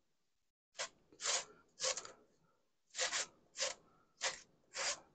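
Raw potatoes being shredded on a hand grater: a rasping stroke roughly every half second, seven in all, with a short pause after the third.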